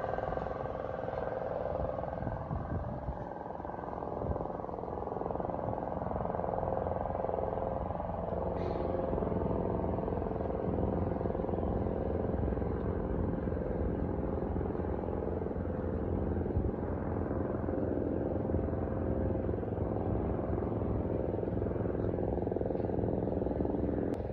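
Street traffic: vehicle engines running and passing in a steady mix with no clear breaks.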